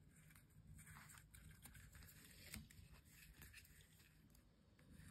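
Near silence, with faint rustles and small ticks of conductive thread being pulled through felt and looped at an LED sequin's terminal.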